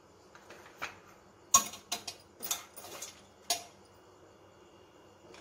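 A handful of sharp clinks and clatters of a kitchen utensil against dishware, about six in two seconds, the first the loudest.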